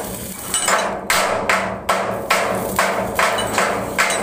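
Hammer blows on steel in a metal fabrication workshop, struck at a steady pace of about two to three a second.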